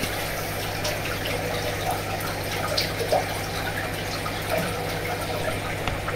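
Aquarium aeration: a stream of air bubbles from an airline tube rising to the water surface, a steady trickling bubble noise with small pops, over a steady low hum.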